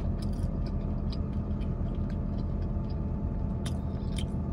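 Steady low hum of a stationary car's engine idling, heard from inside the cabin, with faint scattered clicks.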